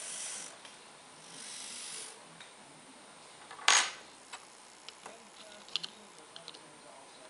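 A thin metal tool set down on a wooden tabletop with one sharp click a little before halfway, the loudest sound, followed by light scattered clicks of a tiny Z-scale model locomotive being handled on its track. Two short rustling hisses come first.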